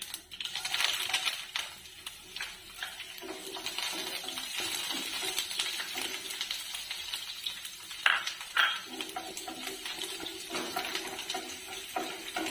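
Shallots, dried red chillies and curry leaves sizzling in hot coconut oil in a nonstick kadai, loudest just after they go in, while a wooden spatula stirs and scrapes the pan. A few sharp knocks of the spatula against the pan come about eight seconds in and again near the end.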